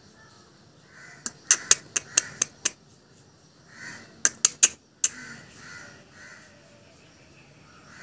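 Short harsh animal calls, with two quick runs of sharp clicks: about eight in a row between one and three seconds in, and three or four more a little past the middle.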